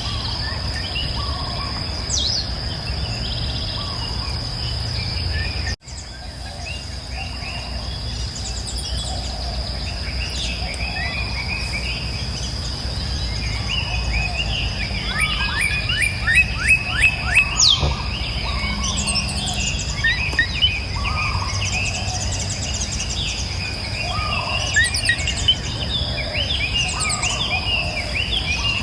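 Birds of several kinds chirping and singing in a forest over a steady high insect drone and a low background rumble. A fast run of repeated chirps about two-thirds of the way through is the loudest part, and the sound drops out briefly about six seconds in.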